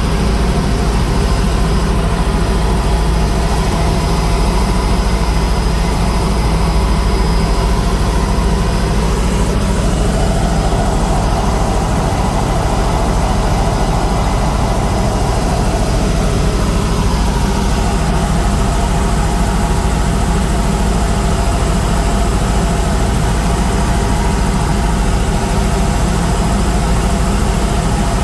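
Helicopter in flight: a loud, steady drone of rotor and engine, heaviest in the deep bass, with a mid-pitched hum that swells for several seconds about a third of the way in and then settles back.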